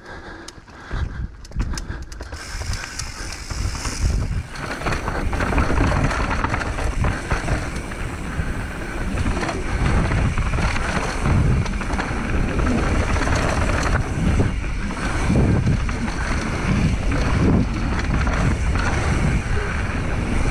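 Mountain bike riding a rough trail: tyres rolling over stones and the bike rattling, with wind rumbling on the microphone. It is quieter with scattered knocks at first, then louder and continuous from about four seconds in.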